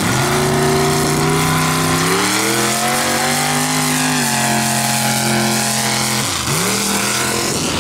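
Modified-class mud-racing buggy's engine revving hard as it pulls away and runs through the mud. The pitch climbs at the start, rises again about two seconds in and holds, then drops sharply near the end before climbing again.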